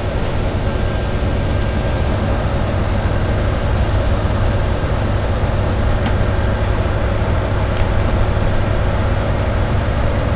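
Interior noise of a Volvo B9TL double-decker bus, its six-cylinder diesel running, with a steady low hum underneath. There is a single click about six seconds in.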